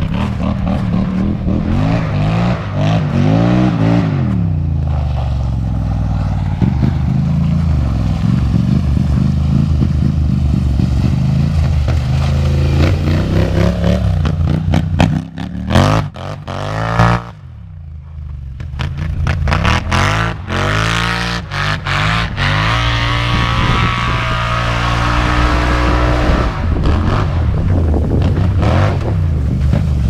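Polaris Scrambler XP 1000 ATV's twin-cylinder engine through an aftermarket RJWC exhaust, revving up and down repeatedly under throttle. A little past halfway it drops away sharply as the quad eases off or moves away, then builds again to a steady loud run.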